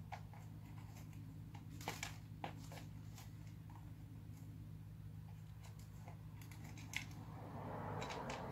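Faint, scattered sharp clicks and scrapes of hands working a repacked two-stroke motocross silencer's metal can and end cap back together, over a steady low hum.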